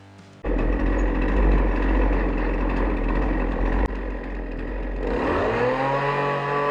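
Small two-stroke chainsaw on a homemade chainsaw sawmill comes in suddenly about half a second in, running at lower speed with a deep rumble. About five seconds in, its pitch climbs steeply as the engine revs up, then holds high.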